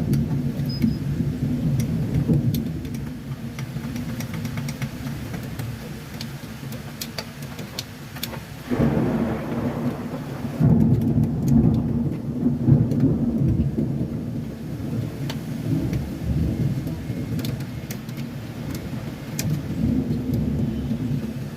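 Thunder rumbling low and long during a heavy rainstorm, with the patter and ticks of rain. A louder peal of thunder breaks in about nine seconds in and rolls on for several seconds before fading back.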